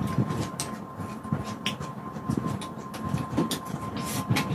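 Close-miked chewing of a mouthful of food: wet mouth sounds with irregular small clicks, over a faint steady high-pitched tone.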